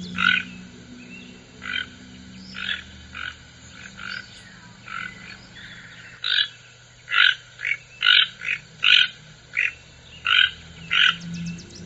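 Toucan calling: a series of short croaking calls, spaced out at first, then coming faster in quick runs from about halfway through.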